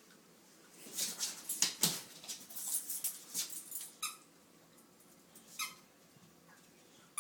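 A dog chewing and mouthing a toy: a run of quick clicking and rustling chewing sounds, then two short squeaks about a second and a half apart.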